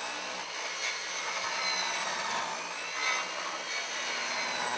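Makita magnesium circular saw cutting through a BlueDuct duct pipe: a steady cutting noise with a faint high whine from the running blade.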